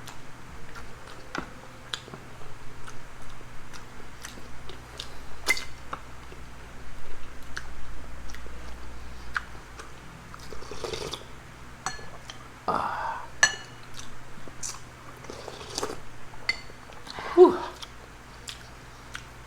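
Eating sounds: chewing, with scattered short clicks of cutlery and dishes.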